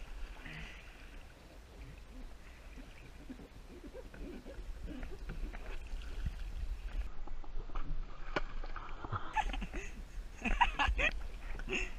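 Kayak paddle strokes dipping and splashing in lake water, with scattered small splashes and drips and a sharp knock about eight seconds in.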